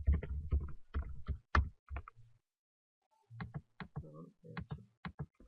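Computer keyboard typing heard through a desk microphone: quick key clicks with dull thuds, in two runs with a short pause near the middle.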